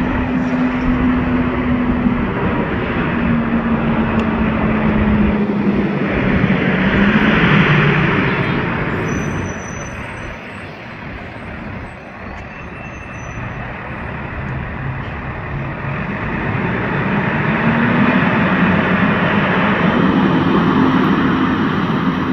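A 2010 Gillig Low Floor 40-foot transit bus, Cummins ISL9 inline-six diesel with an Allison B400R automatic transmission, drives past with a steady engine tone, loudest a few seconds in. It quietens briefly about halfway through, then accelerates away with the tone rising and the sound growing louder again.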